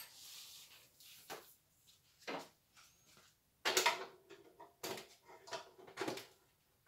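Handling noise as a cable is hung on a small steel-tube trolley: a string of short knocks and clatters of cable and metal frame, busiest around four seconds in.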